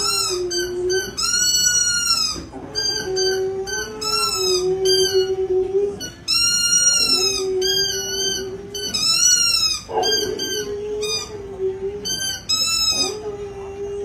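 Boxer dog howling in long, held notes that break off and start again every second or two, with higher, shorter wavering notes repeating alongside.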